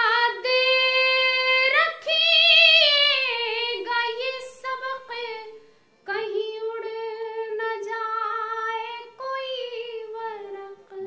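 A woman singing an Urdu verse (sher) solo, without any instruments, in a high voice with long held notes and melodic turns. There is a brief pause about six seconds in.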